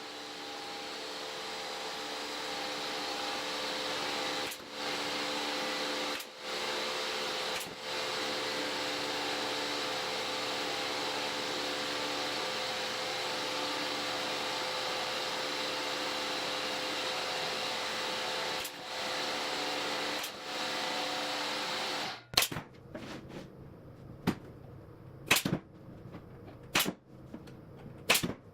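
A woodworking machine runs steadily with a hum, with several brief drops, then stops about 22 seconds in. Several sharp knocks or clicks follow near the end.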